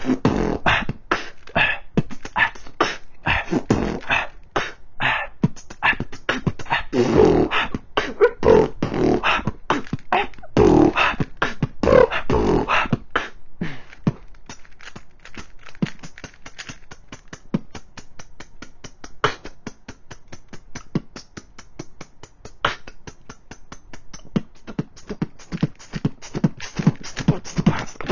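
A person beatboxing: rapid mouth-made percussion in a steady rhythm. It is louder for the first half, softer with quick light clicks through the middle, and picks up again near the end.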